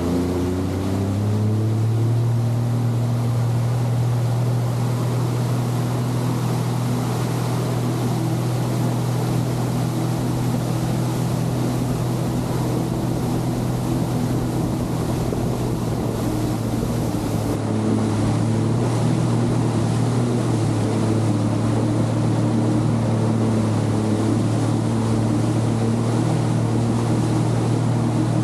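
Jet ski engine running under way with water rushing past. It rises in pitch over the first couple of seconds, then holds at a steady speed.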